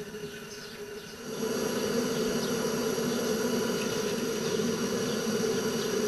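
Pressurized Coleman-fuel burner firing inside a small vertical fire-tube boiler, a steady buzzing hum that comes up louder about a second in; the burner has just been lit and is heating the boiler.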